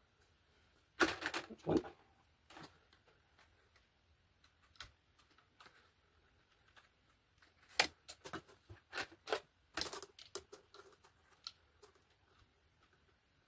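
Plastic PTFE feed tubes being pushed into the top of an Anycubic Kobra 3 3D printer's print head and handled: a cluster of rustling, scraping clicks about a second in, then scattered small clicks and taps from about eight to eleven seconds in.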